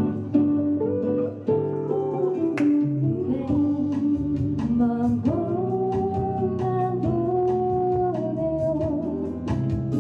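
A woman singing a slow Korean ballad into a microphone over a backing track of plucked guitar. The accompaniment plays alone at first, and her voice comes in about three seconds in.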